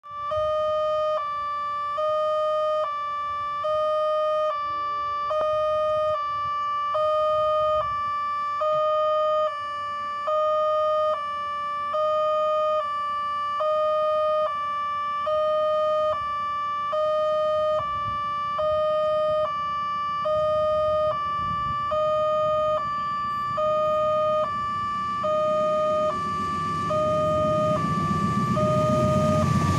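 Railway level-crossing warning alarm sounding a two-tone electronic signal that alternates between a lower and a higher note about once a second, warning that a train is coming. In the last few seconds the rumble of the approaching train rises under it.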